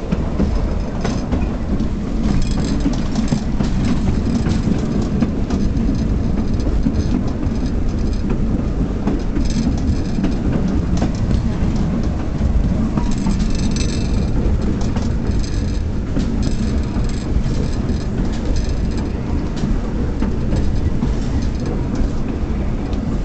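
A restored 1923 Brill trolley car running along its track, heard from aboard: a steady rumble with irregular clicks from the wheels over rail joints and switches. Brief high-pitched wheel squeals come about halfway through as the car slows through the switches.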